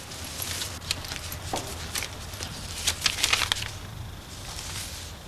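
Soft rustling and light taps of letters and a paper envelope being handled, in a few short clusters over a steady low hum.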